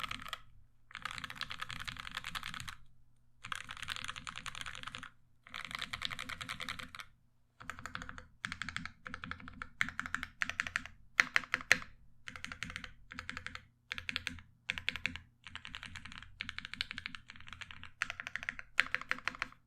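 Typing on a Dolch.CR mechanical keyboard with lubed, filmed Durock Mauve linear switches, a 4 mm aluminum plate and GMK ABS keycaps: dense runs of keystrokes a second or two long with brief pauses, the runs getting shorter partway through, a few strokes louder than the rest.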